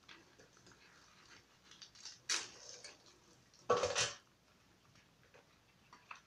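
Cardboard template being peeled and torn off a cast cement figure by gloved hands, with light scraping and crumbling of excess cement. Two louder scrapes stand out, a short one a little past two seconds in and a longer one just before four seconds in.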